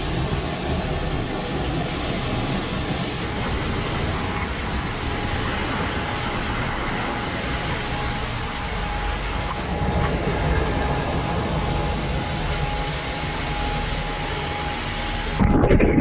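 A waterfall's water rushing steadily, an even, continuous noise. Near the end it cuts abruptly to music.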